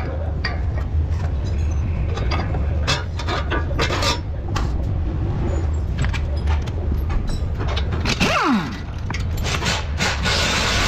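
Metal clicks, knocks and scraping from hand work on a car's front steering knuckle and CV drive axle, over a steady low hum. About eight seconds in comes a brief falling sweep, and near the end a short burst of hiss.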